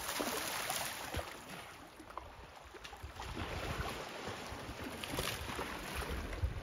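Elephants splashing and sloshing in a muddy waterhole: irregular splashes of water and mud, busiest about the first second and again around five seconds in.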